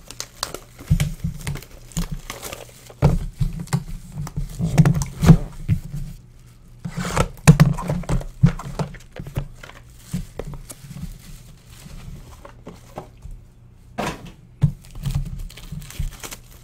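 Foil trading-card pack wrappers crinkling and tearing open, with cards and small boxes handled and knocked on a tabletop in irregular bursts.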